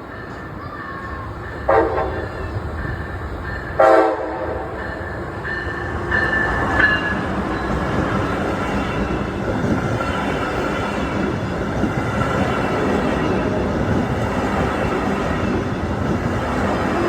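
Brightline passenger train's horn: two short, loud blasts about two seconds apart, then the train running past with steady rumble and wheel clatter that grows louder.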